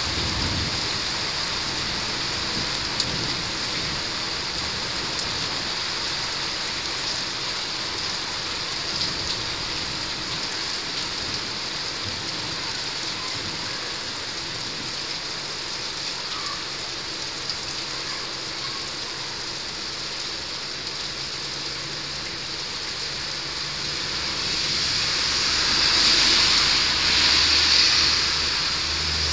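Heavy rain pouring steadily onto roofs and the balcony in a thunderstorm, the hiss swelling louder near the end.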